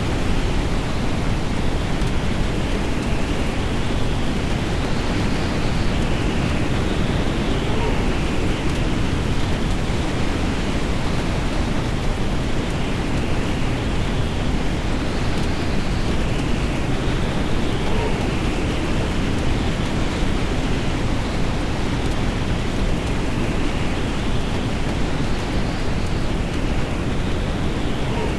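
Steady, unbroken rushing noise with a faint pattern that repeats about every ten seconds.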